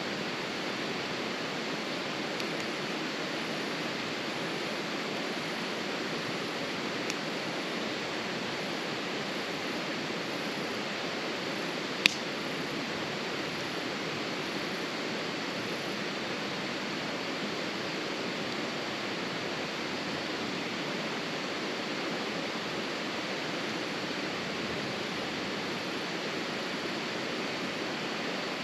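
Steady rushing noise with one sharp pop from the campfire about twelve seconds in, and a fainter tick a few seconds earlier.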